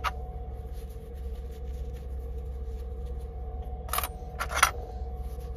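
Metal clipper blade parts being handled: two sharp clicks a little over half a second apart, about four seconds in, over a steady low hum.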